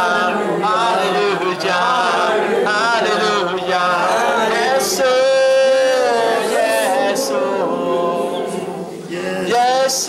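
Unaccompanied worship singing led by a man's voice, with a group joining in. Notes are held long about five seconds in and again near the end.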